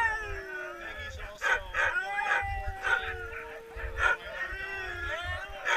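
A team of harnessed sled dogs (huskies) barking, yipping and howling together, sharp barks over long gliding howls and whines: the clamour of a hooked-up team waiting to run.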